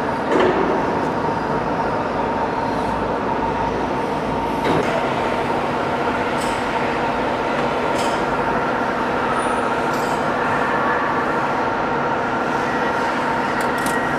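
CNC gas cutting machine running a cut: a steady torch hiss with a constant machine hum under it, and a few short sharp ticks.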